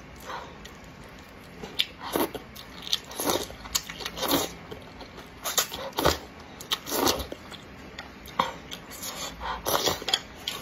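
Wide flat noodles in chili oil being slurped and chewed: a run of short, wet slurps and mouth sounds, roughly one a second.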